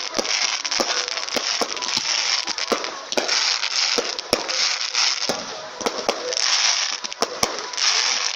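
Fireworks display: a rapid, irregular run of sharp bangs over a dense crackling hiss.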